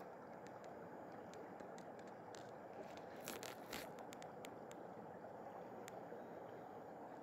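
Faint, steady rush of flowing river water, with scattered small clicks and a brief scrape of handling a little over three seconds in.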